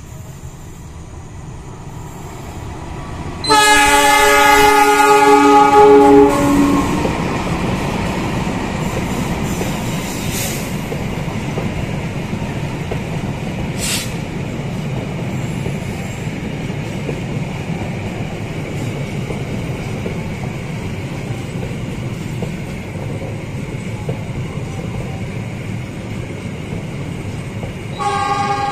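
Railway locomotive sounding a loud multi-tone horn for about three seconds, then a long passenger train rolling past with a steady rumble of wheels on rails. A short horn blast comes near the end.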